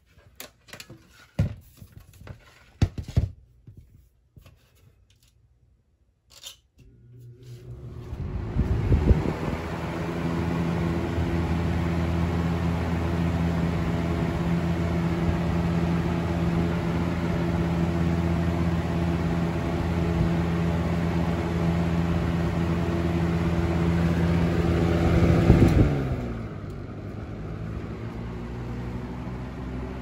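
1995 Windmere (Lakewood) box fan: a few clicks, then the motor starts about seven seconds in, its hum rising as the blade spins up. It then runs steadily with a motor hum and the rush of air. Near the end the pitch drops and it gets quieter, settling into a lower, steady running sound.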